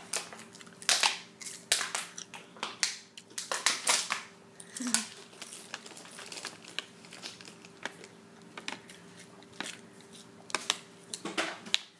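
Thin plastic water bottle crackling and crinkling as it is twisted open, gripped and drunk from, in irregular sharp clicks that come thickest in the first few seconds.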